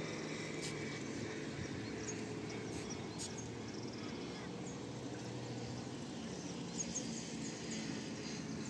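Quiet, steady outdoor background hum with a few short, high bird chirps, a couple early and a cluster about seven seconds in.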